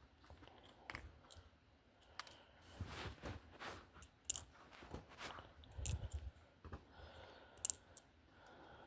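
Faint, scattered clicks and taps of small slot car motor parts (brushes) being picked up and dropped into a small container, with a soft thump about six seconds in.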